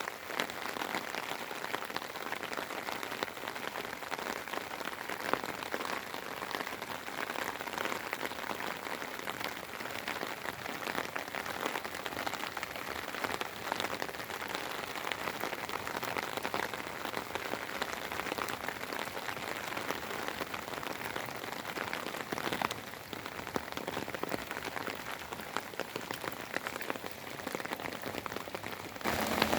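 Steady spring rain falling, a dense patter of many small drop ticks. It turns louder and fuller just before the end.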